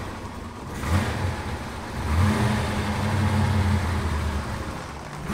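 Twin-turbocharged V8 of a 1957 Chevrolet Bel Air running as the car creeps forward, its note swelling briefly about a second in, then louder and steady from about two to four and a half seconds in. With the exhaust leak repaired it runs quietly.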